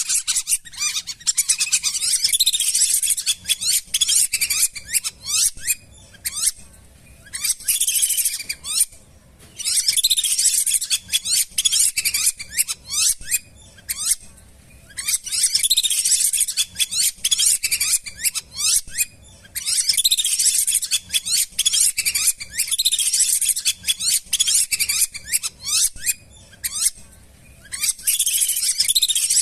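Lesser whistling ducks giving high, thin whistled calls, many overlapping, in bouts of a few seconds broken by short pauses.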